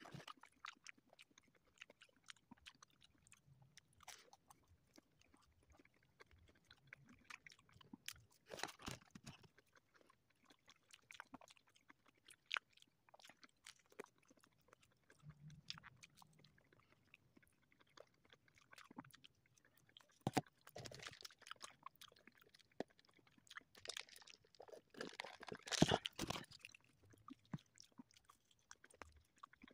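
Faint close-up chewing of crispy breaded fried chicken, with soft mouth clicks between a few louder crunching bites; the loudest crunching comes near the end.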